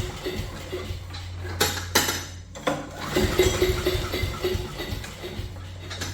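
Clattering and clinking of metal objects being moved and set down, with several sharp knocks.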